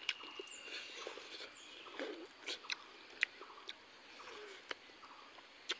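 Close-miked mouth sounds of someone eating rice and curry by hand: soft chewing with scattered sharp smacks and clicks.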